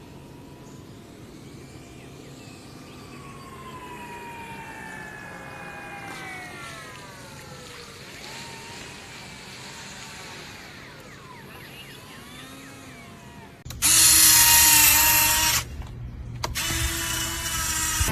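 Motors of a radio-controlled model PBY Catalina flying boat whining overhead, their pitch sliding slowly downward as the model passes and flies off. About fourteen seconds in, a much louder close-up motor run with a wide hiss begins suddenly, cuts out briefly about two seconds later and then resumes.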